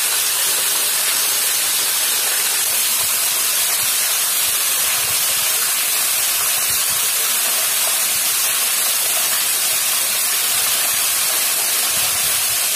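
Steady hiss of rushing water from a waterfall inside a cave.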